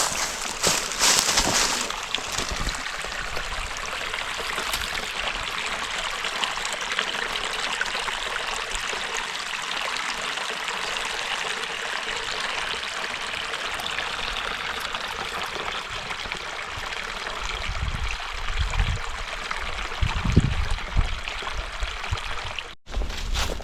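Steady flowing water, an even rushing hiss, with a few low thuds late on.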